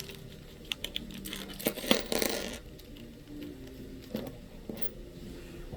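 Small clicks and light rattling of precision screwdriver bits and tools being handled, with a short rustle about two seconds in.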